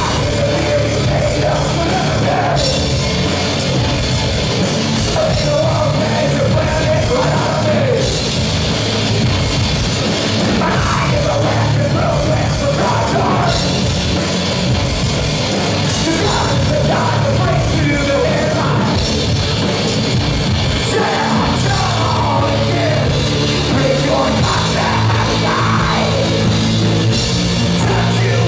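A rock band playing live and loud: electric guitar, bass and drums, with a singer's vocals over them.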